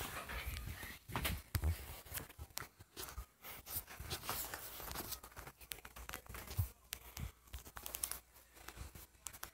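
Irregular rustling and crackling with many short clicks, close to the microphone.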